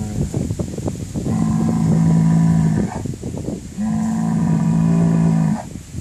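Bull bellowing twice: two long, steady-pitched calls of about a second and a half each, a second apart.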